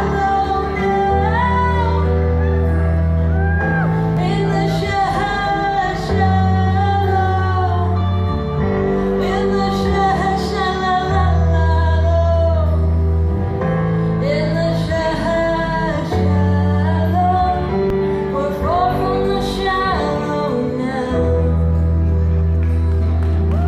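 A female vocalist singing live into a microphone over instrumental backing music with long held bass notes, amplified through a PA in a hall.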